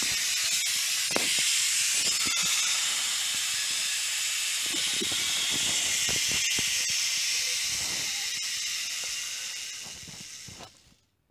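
A steady hiss with a few light clicks, fading out near the end.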